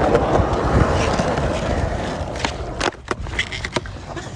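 Skateboard rolling, a steady rumble that drops off about three seconds in, with a few sharp clacks of the board around then.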